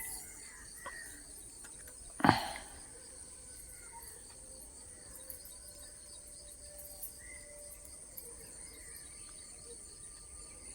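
Steady high-pitched buzz of insects, with one sharp, sudden sound about two seconds in.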